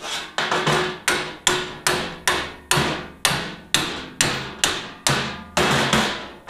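Steady hammering on steel, about two blows a second, each strike ringing briefly.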